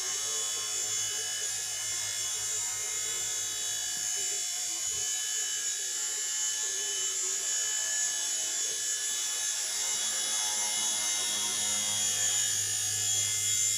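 Small electric RC helicopter's rotor motors running with a steady high-pitched whine.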